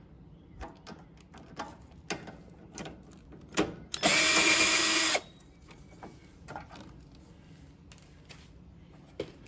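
A cordless drill-driver with a nut-driver bit runs for about a second, backing out a 5/16 bolt on a Briggs & Stratton mower engine, and stops abruptly. Small clicks and knocks of the tool and parts being handled come before and after.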